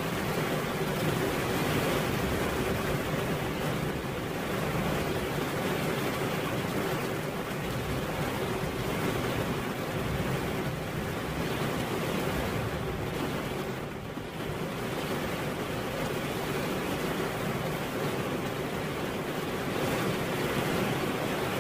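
Steady rain falling, an even hiss that eases slightly for a moment about two-thirds of the way through.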